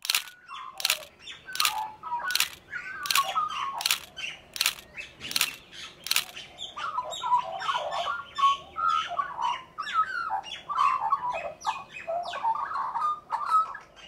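Australian magpie calling in warbling, gliding notes. For the first six seconds a sharp click repeats about every three-quarters of a second over the calls; after that the warbling carries on alone.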